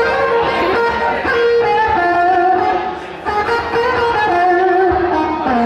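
Electric guitar playing a slow line of single held notes, several of them bending and wavering in pitch. It is played to test whether the guitar can be heard in the band's mix.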